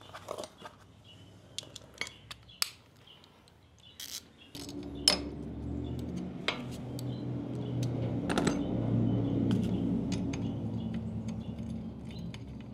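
Metal hand tools clinking and clicking as a 10 mm socket wrench is picked up and fitted to the motorcycle's sidestand switch bolt. From about four and a half seconds a low steady hum swells and then fades under the scattered clicks.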